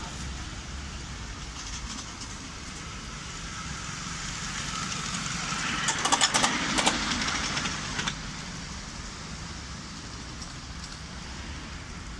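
Miniature live-steam GWR Small Prairie tank locomotive hauling a passenger-carrying riding car past at close range. Its steam and running noise build up and peak with a quick run of sharp clicks about six seconds in, then fade as it moves away.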